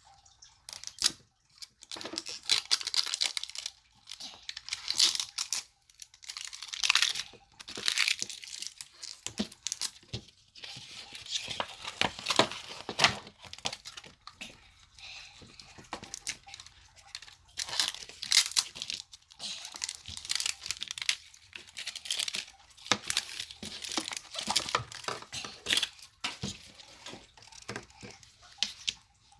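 Toy packaging being torn open and crinkled by hand, in repeated irregular bursts with short pauses.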